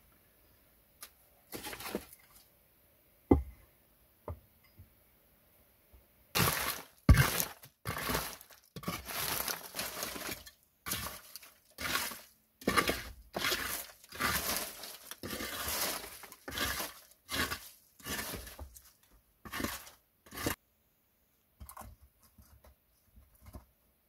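A hand tool cutting wood: a few scattered knocks at first, then from about six seconds in a steady run of rough, scraping strokes, roughly one a second, that stops a few seconds before the end.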